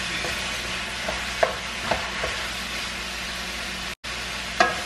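Ground beef sizzling as it browns in a frying pan while a wooden spatula stirs and breaks it up, with a few short scrapes of the spatula against the pan.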